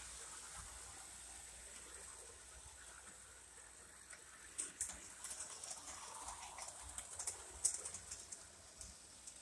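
Small battery-powered O-gauge model train running on sectional track, faint at first, then light, irregular clicking and clacking from the wheels over the rail joints through the second half.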